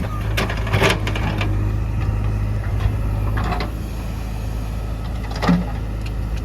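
Backhoe loader's diesel engine running at a steady idle-like drone, with a few short knocks over it, the sharpest about a second in and again near five and a half seconds.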